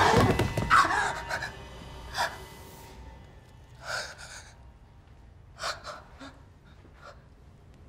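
A young woman gasping for breath in a few short, sharp gasps spaced a second or two apart, after a loud burst of sound dies away in the first second.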